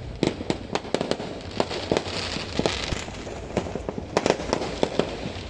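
New Year fireworks going off: many sharp bangs and pops in quick, irregular succession, over a hissing crackle that swells about halfway through.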